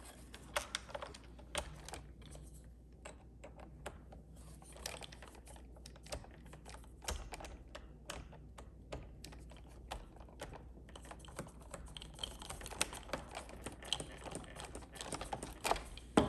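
Irregular light clicks and taps of hands and a small screwdriver working on a Roomba's plastic underside, fitting the new side brush and its single Phillips screw.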